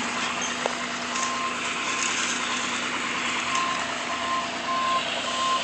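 Skid steer engine running steadily, with a backup alarm that starts about a second in and repeats high, even beeps.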